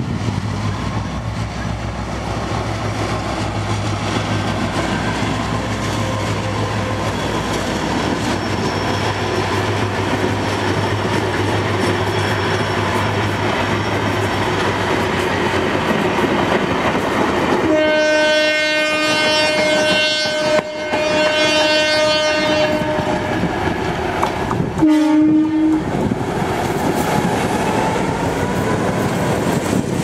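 GT22 diesel locomotives and their passenger coaches passing each other, the train rumbling on the rails with a steady low engine hum. Past the middle a locomotive horn sounds one long blast of about five seconds, then a short second blast.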